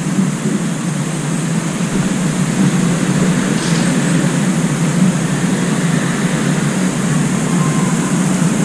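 Steady low rumble of background noise, unbroken and without distinct events.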